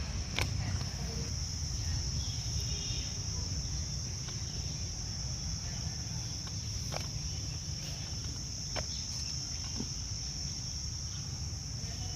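Crickets chirping in a steady high-pitched trill, over a low hum, with a few faint clicks.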